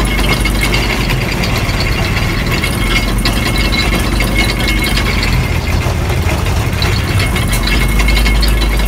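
Sugarcane juice crusher running: its geared steel rollers rattle steadily over a low hum and a thin high whine as a wad of crushed cane is pressed through them again.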